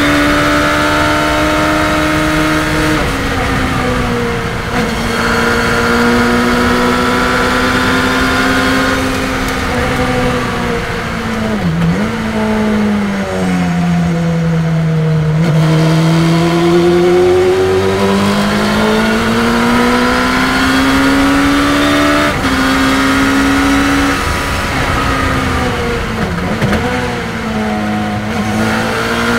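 Race car engine heard from inside an open cockpit at track speed, under a rush of wind. Its revs sag under braking, are lowest through a slow corner in the middle, then climb steadily as the car accelerates out. The pitch drops sharply at a gear change about three seconds in and again about two-thirds of the way through.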